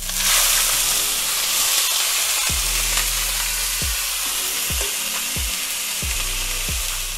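Marinated flank steak sizzling hard as it hits a very hot oiled pan to sear. The sizzle starts suddenly as the meat lands and eases slightly near the end.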